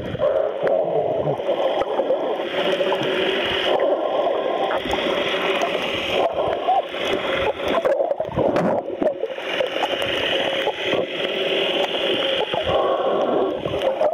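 Underwater sound picked up by an Olympus Tough TG-1's built-in microphone while submerged: a steady rush of water noise with scattered short clicks.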